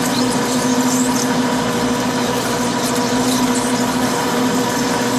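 Metal lathe running while a parting tool cuts into the spinning metal workpiece under flood coolant: a steady hum over an even hiss of cutting and coolant flow, with faint short high squeaks now and then.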